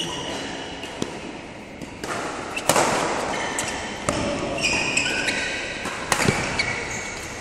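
Badminton rackets striking the shuttlecock in a rally: several sharp smacks a second or more apart, ringing in a large hall, with short high squeaks of sports shoes on the court mat between them.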